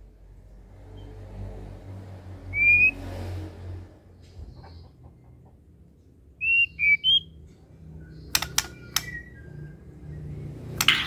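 White-rumped shama (murai batu) giving short clear whistled notes: one about three seconds in, then a quick run of three a few seconds later, followed by a few sharp harsh calls near the end.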